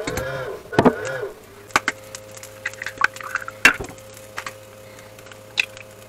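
Two eggs being cracked into a ceramic bowl: sharp taps and cracks of the shells, with the eggs slipping into the bowl. Background music fades out in the first second or so.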